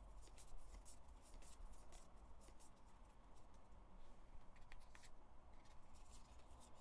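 Faint, irregular clicks and slides of stiff photocards being flipped through by hand, one card moved to the back of the stack after another.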